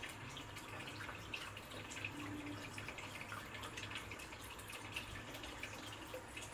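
Water dripping and trickling in a small room, with many small irregular drips and splashes over a low, steady hum.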